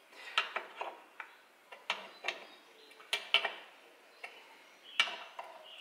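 Light metallic clicks and taps, about ten scattered irregularly, as a small steel lever made from a ground-down Allen key works against the rear brake assembly on a Lambretta engine casing to pry a part off.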